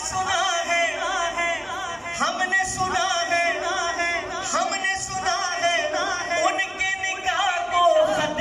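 A man singing a devotional Urdu manqabat into a microphone, one long line with quick ornamental turns and wavers in the melody.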